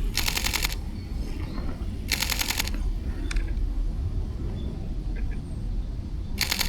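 Fujifilm X-H1 mechanical shutter firing in continuous-shooting bursts: three short runs of rapid shutter clicks, each about half a second long, near the start, about two seconds in, and near the end.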